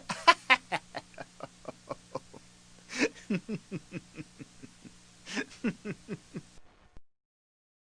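A person laughing in three bouts, each opening with a sharp intake of breath and followed by a run of quick 'ha' pulses that grow fainter; the laughter stops about seven seconds in.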